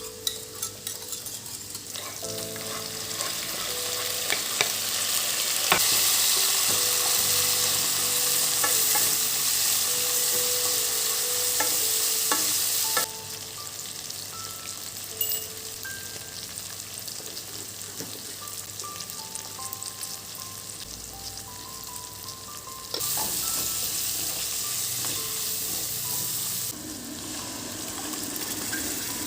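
Food sizzling in a frying pan with the scrape and click of a utensil stirring it, the sizzle jumping louder and quieter at sharp cuts, over soft background music.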